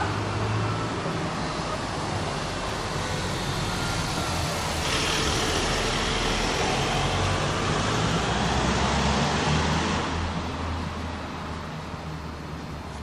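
A van drives slowly past on brick paving. Its engine hum and the rumble of its tyres on the pavers swell, loudest from about five to ten seconds in, then fade.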